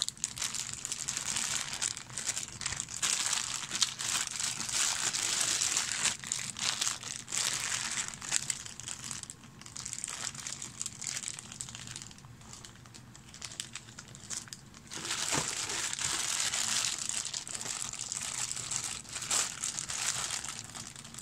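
Clear plastic bags of plastic miniatures being handled and pulled from a cardboard box, crinkling irregularly, with a quieter stretch in the middle.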